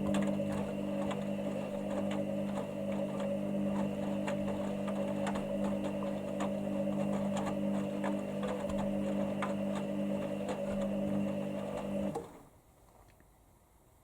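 Hoover Dynamic Next washing machine running mid-wash: a steady mechanical hum with light irregular clicks. The hum stops abruptly about twelve seconds in.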